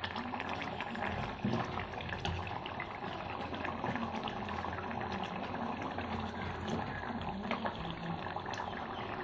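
Thick fish curry simmering in an earthenware clay pot: steady bubbling with many small pops. A few sharper clicks come from the steel spoon in the pot.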